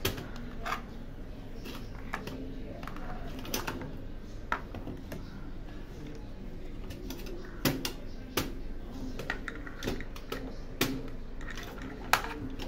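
12-gauge shotgun shells with plastic hulls and brass heads clicking and clinking against each other and a steel plate as they are picked up, stood on end and set down; irregular sharp clicks, one every second or so.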